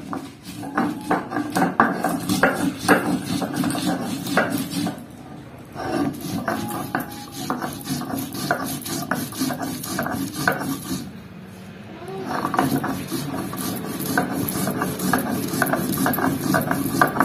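Sil-batta grinding stone in use: a hand-held stone rubbed back and forth over a textured stone slab, crushing dried red chillies, cumin, garlic and ginger into masala, with a gritty stone-on-stone scrape and crunch. It pauses briefly twice, about five and eleven seconds in.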